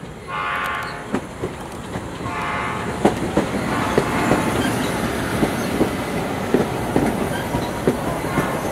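Stainless-steel electric commuter train passing at speed: two short horn blasts in the first three seconds, then a steady rumble with its wheels clicking over rail joints a couple of times a second as the cars go by, and another horn blast starting near the end.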